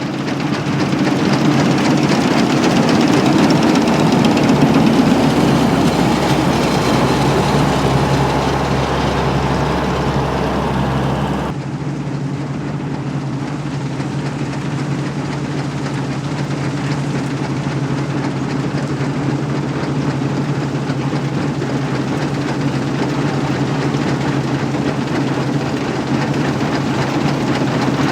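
Fortschritt E514 combine harvester working, its four-cylinder diesel engine running steadily under load with the clatter of the threshing drum and straw walkers. The sound changes abruptly about a third of the way through, dropping its deepest rumble.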